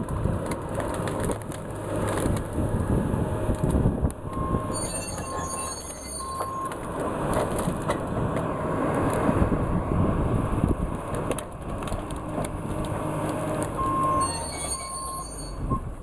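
Tracked forestry processor working close up: its diesel engine running hard with hydraulics, and frequent knocks and cracks as the processor head grips and handles logs and branches. A short beep sounds three times about four seconds in, and again three times near the end.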